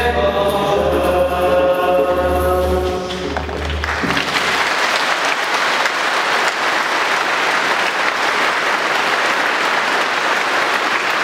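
Group singing accompanied by guitar and a hand drum, ending about three seconds in. Then a church congregation applauding steadily.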